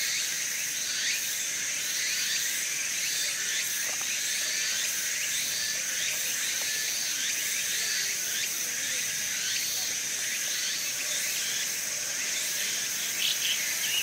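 Woodland insect chorus: a steady high-pitched drone, with a rising-and-falling call repeated a little more than once a second.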